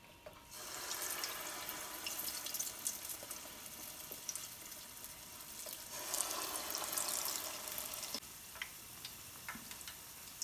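Spoonfuls of akara (black-eyed-pea fritter) batter dropped into hot oil in a pot, sizzling. The sizzle starts about half a second in and swells again about six seconds in as the next spoonful goes in, with small pops and crackles near the end.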